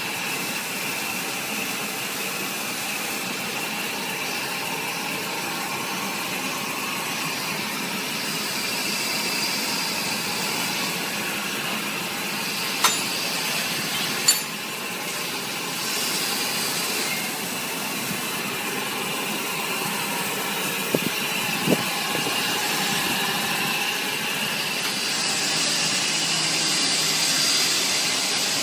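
Cable extrusion line machinery running: a steady mechanical noise with a hiss. Two sharp clicks come a little before halfway and two more about a third of the way from the end, and the hiss grows louder near the end.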